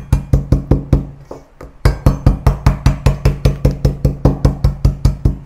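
A cleaver bashing a lemongrass stalk on a wooden cutting board to bruise it: fast, even knocks of about five a second, each with a low thud from the board. About a second in they stop for just under a second, then carry on.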